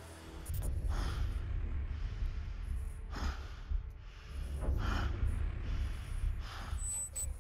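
A person panting hard, with about four heavy gasping breaths, as when running and out of breath, over a deep low rumble.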